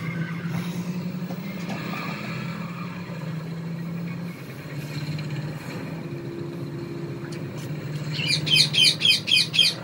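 Rapid run of about six high, falling chirps, typical of a small bird, starting about eight seconds in. It is the loudest sound, over a steady low hum.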